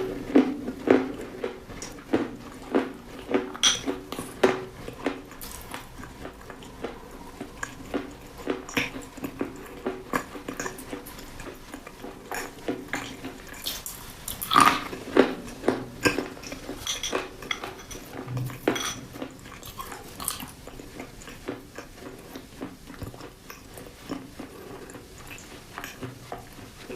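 Close-up chewing of crunchy food, with many sharp crunches coming irregularly several times a second.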